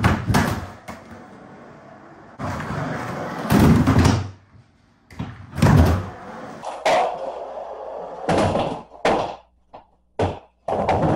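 Skateboard wheels rolling on a concrete floor, broken several times by loud clacks and slams of the board landing on the floor, ramp and ledge.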